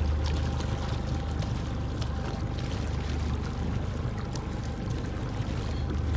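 Boat motor running steadily as it tows a wooden raft, with water rushing and splashing against the raft's leading edge.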